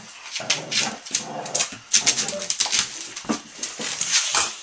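Two dogs play-fighting, a pit bull and a young puppy, making short dog vocalizations over a run of quick, irregular scuffling clicks and knocks.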